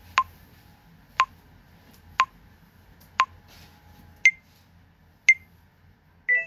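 Smartphone TikTok app countdown timer ticking once a second, the last two ticks higher-pitched, then a short final beep that marks the start of recording.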